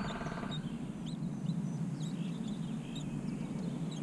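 Birds chirping, short high calls scattered throughout, over a steady low background hum; a rapid pulsing buzz ends about half a second in.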